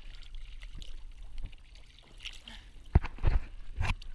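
Choppy seawater splashing and lapping close to the microphone, then a few heavy thumps about three seconds in and again near the end as the surfer reaches the inflatable dinghy and grabs its side tube.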